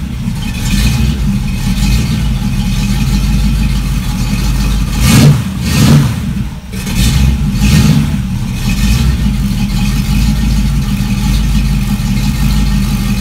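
283 small-block Chevrolet V8 on a run stand, running through a pair of old black 15-inch Flowmaster mufflers (42551H) with a steady idle and a few short revs around the middle. It comes across a little louder and more open sounding than the longer mufflers, deep like a big motor.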